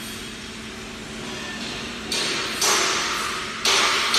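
Steam hissing out of the pipes of a stainless steel steam boot dryer rack in pulses: from about halfway in, bursts of hiss cut in sharply three times, each fading slowly, over a faint steady hum.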